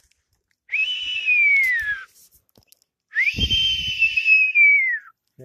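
A person whistles two long calls to summon a wild kite. Each call holds a high note and then slides down, the second longer than the first.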